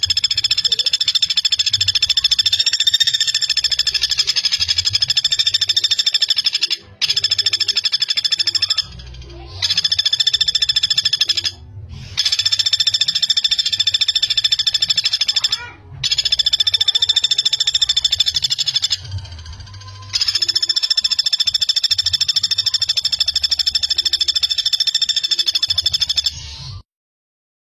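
Common flameback (pelatuk bawang) giving its rapid, tightly spaced rattling trill in long runs of several seconds, broken by short pauses, about six runs in all, stopping about a second before the end.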